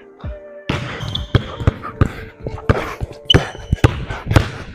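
Basketball dribbled hard on a hardwood gym floor, a rapid run of bounces at about three a second through a behind-the-back, crossover and between-the-legs dribble combination.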